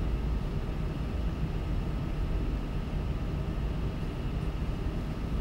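Room tone: a steady low hum with a couple of faint, steady higher whines running under it.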